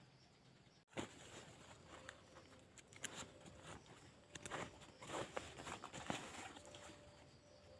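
Faint rustling and crackling with scattered light clicks and knocks, as of someone moving about on dry leaf litter and handling camping gear.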